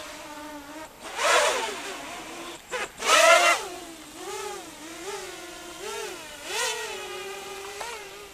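Electric motor and propeller whine of a small radio-controlled aircraft in flight, its pitch rising and falling with the throttle. Two sharp throttle bursts come about one and three seconds in; after that the whine swells and dips roughly once a second.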